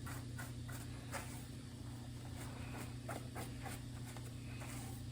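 A comb being pulled through a wet, shampooed deep-wave wig: a string of short, irregular strokes and clicks, over a steady low hum.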